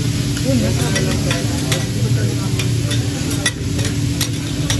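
Cubed beef sizzling on a steel teppanyaki griddle while a chef's metal spatulas repeatedly scrape and clack against the plate, over a steady low hum.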